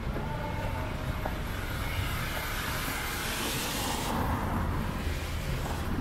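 City traffic on a rain-soaked street: a steady low rumble with a vehicle's tyres hissing through standing water as it passes. The hiss builds from about two seconds in and stops abruptly about four seconds in.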